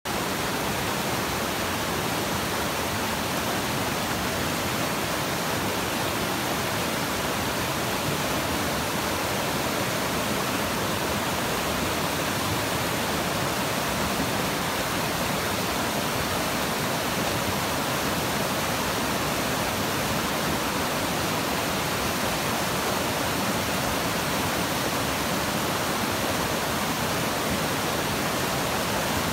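A rocky mountain river rushing over boulders in small whitewater rapids, a steady, even sound of moving water.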